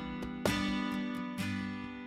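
Background music: an acoustic guitar strumming chords, about one strum a second, each chord ringing on until the next.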